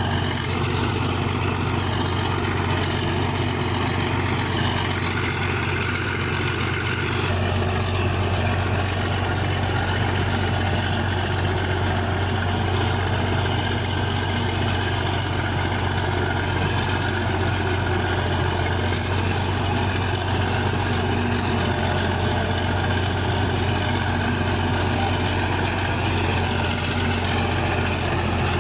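Bulldozer's heavy diesel engine running steadily, with a deep low hum. It steps up slightly and suddenly about seven seconds in.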